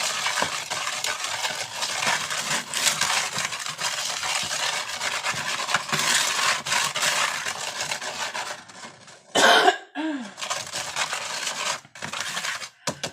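Baking soda and citric acid powder being worked in a bowl to break up clumps: a steady scratchy scraping with fine rapid clicks. It pauses about nine and a half seconds in for a short cough, then resumes.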